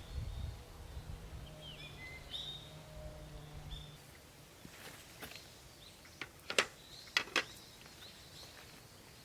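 Birds chirping briefly outdoors in the first half, short rising and falling chirps over a faint low hum. Later a few sharp clicks or knocks follow, the loudest sounds.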